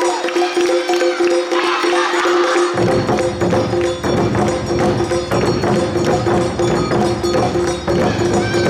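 Awa odori band music: quick metallic strikes of the hand gong (kane) over a steady held tone, with low drums joining about three seconds in.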